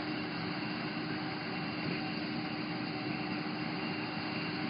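Self-propelled forage harvester and its tractor running steadily at work, an even machinery drone with a steady hum through it.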